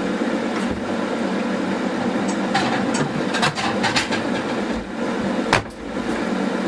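Monzana hot-air fryer's fan running with a steady whir while it cooks. Several short clicks and knocks come over it, mostly in the middle, as a kitchen cupboard door is shut and things are handled.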